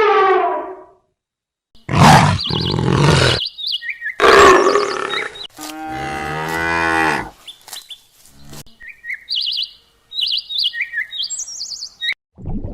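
A cow mooing: one long, low call about six seconds in, after two loud rough bursts. It is followed by a run of short, high bird chirps near the end.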